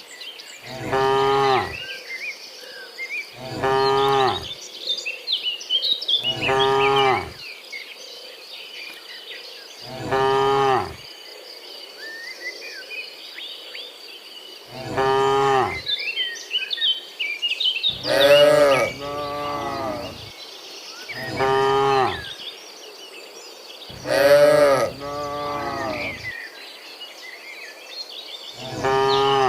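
Cattle mooing again and again, about ten drawn-out moos of roughly a second each from several cows, some coming back to back. Higher chirps and a steady high tone fill the gaps between the moos.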